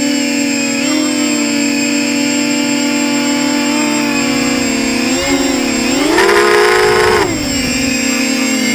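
Versacopter 280 quadcopter's electric motors and propellers whining steadily in flight, picked up by the camera mounted on the drone. About six seconds in, the whine rises in pitch and gets louder for about a second as the throttle goes up, then falls back to its earlier pitch.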